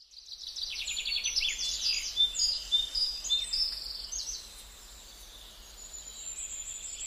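Birds singing and chirping, several calls overlapping: quick trills and short whistled notes, busiest in the first four seconds and thinner after that.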